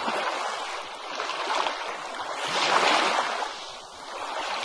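Ocean waves breaking and washing up on a beach. The surf swells to a peak about three seconds in, falls back, then begins to build again near the end.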